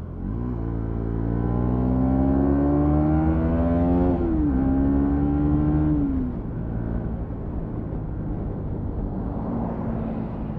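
Bajaj Pulsar NS200 FI's single-cylinder engine pulling uphill under acceleration, its pitch rising steadily, dropping briefly at a gear change about four seconds in, then falling away as the throttle eases about six seconds in.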